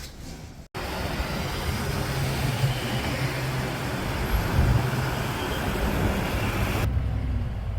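Steady road-vehicle noise: a low rumble with rushing hiss over it, starting abruptly under a second in; the hiss drops out near the end while the rumble continues.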